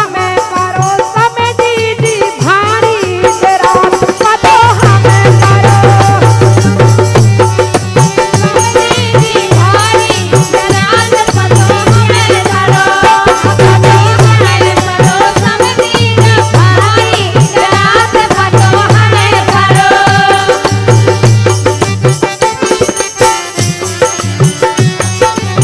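Bundeli folk wedding song (gari) with a woman singing the lead over a harmonium. A hand drum and a jingling rattle-like percussion keep a steady beat.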